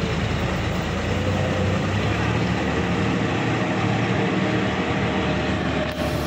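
Sonalika DI-50 RX tractor's diesel engine running steadily under load as it pulls a levelling implement through wet paddy-field mud.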